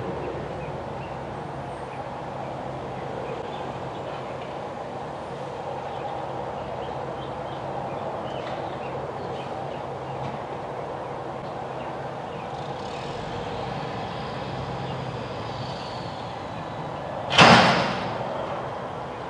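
Front-loader garbage truck's diesel engine running steadily while its hydraulic arms and forks work a dumpster. A loud, sharp burst of noise lasting about half a second comes near the end.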